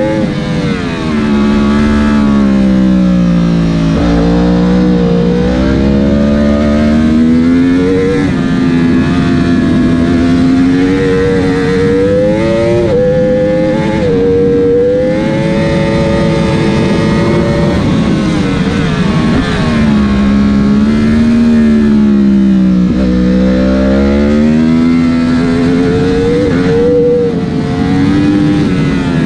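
Yamaha YZF-R1 superbike's inline-four engine at racing revs, its pitch falling as the rider brakes and downshifts for corners and climbing again under hard acceleration, over a steady rush of wind.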